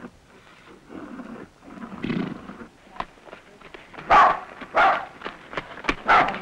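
A dog barking about three times in the second half, short loud barks, over scattered sharp clicks of a horse's hooves on a dirt lane.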